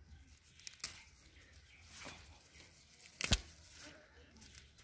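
Purple basil stems snapping and leaves rustling as sprigs are plucked by hand: a few short snaps, the loudest about three seconds in.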